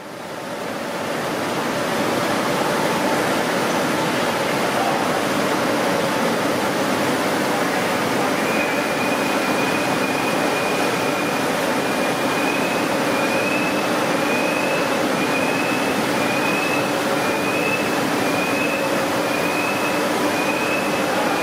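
Atlas TS350 turret slitter rewinder running: a steady mechanical rush with a few low hums. From about eight seconds in, a short high tone repeats about once a second.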